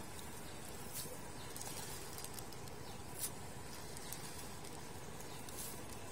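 Faint, steady outdoor hiss with a few soft ticks, as small pellets are sprinkled by hand onto still, shallow water.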